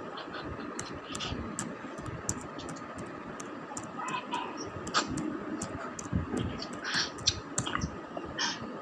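Irregular, sharp clicks and taps of laptop keys being pressed, coming thicker in the second half.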